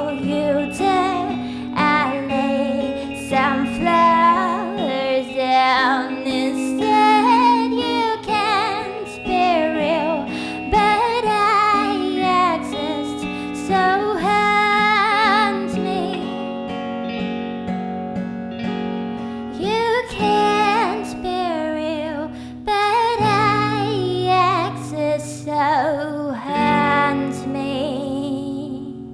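Music: a woman's voice singing a melody without words over acoustic guitar, tapering off near the end.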